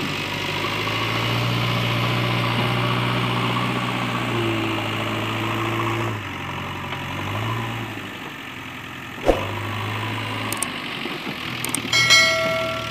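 JCB 3DX backhoe loader's diesel engine running as the loader bucket is worked, its note shifting with load, with a brief whine about four seconds in and a single sharp knock about nine seconds in. Near the end, a click and chime of a subscribe-button sound effect.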